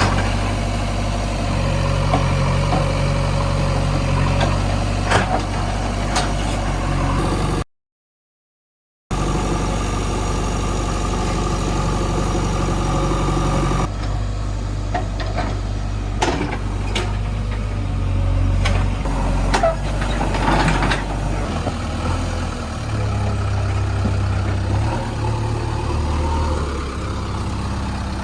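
JCB 3DX backhoe loader's diesel engine running steadily as it digs, with a few short knocks and clanks scattered through it. Its note steps up and down a couple of times near the end. The sound cuts out for about a second and a half some eight seconds in.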